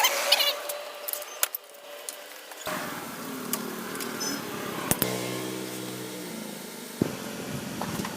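Metal tools and parts clinking and knocking in scattered sharp clicks during scooter repair work, with a steady hum for about two seconds midway through.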